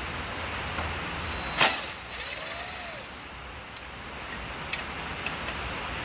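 Cordless drill-driver given one short burst on a frame bolt of a pocket bike, about a second and a half in, followed by a few light clicks from handling the tools and bolt, over a steady hiss.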